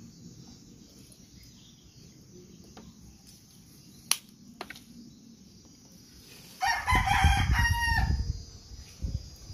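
A rooster crowing once, loud, for about a second and a half near the end. Two sharp clicks come a little before it.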